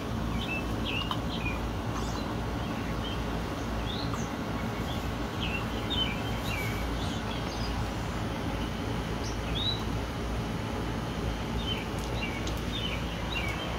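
Small birds chirping in short, scattered calls over a steady low background rumble.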